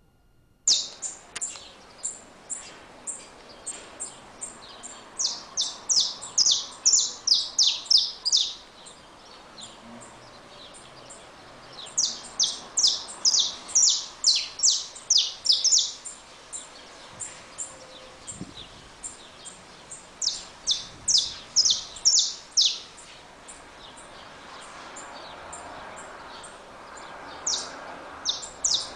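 Saffron finch (canário-da-terra) singing: phrases of rapid, high, sharply falling chip notes, each run lasting a few seconds, with pauses between them and a few scattered single notes at the start.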